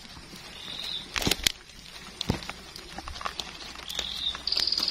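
Scattered sharp snaps and light rustles in dry forest litter, with a high, rapid trill from a small creature starting near the end.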